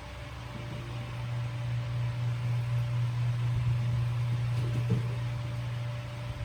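Electric fan running steadily, a constant low hum with the hiss of its moving air. A light knock about five seconds in.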